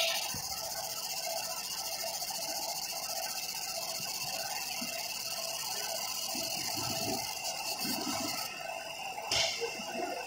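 Fiber laser marking machine running with its red aiming beam tracing the outline: a steady mechanical hum with a high hiss. The hiss cuts off about eight and a half seconds in, and a sharp click follows about a second later.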